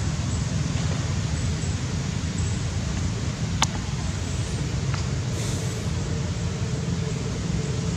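Steady low rumbling background noise, with a single sharp click about three and a half seconds in.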